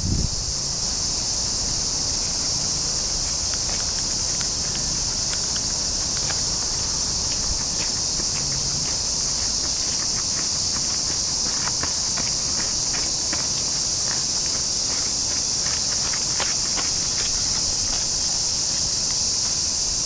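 Cicadas singing in a steady, unbroken high-pitched chorus, with a scatter of faint clicks midway.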